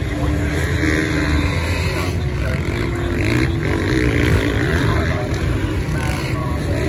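Several motocross bike engines running together in a race on sand, a constant drone whose pitches rise and fall as the riders rev and shift.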